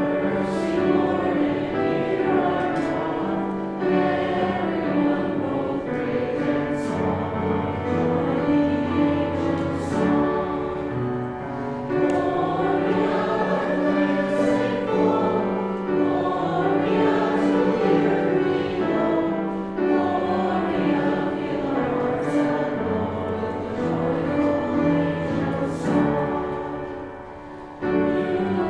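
A group of voices singing a church hymn in held chords, with a short break just before the end.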